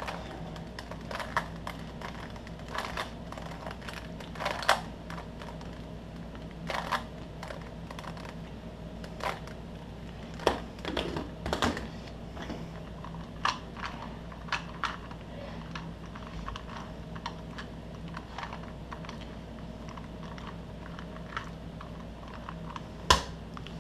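Plastic Rubik's-style puzzle cubes being handled: scattered, irregular clicks of plastic on plastic, with a sharper click near the end, over a faint steady hum.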